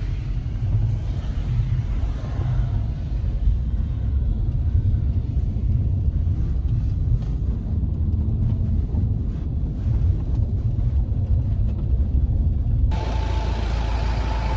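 Service truck's engine and road noise as it drives, a low steady rumble. Near the end the sound changes abruptly to a brighter, noisier engine sound with a steady whine.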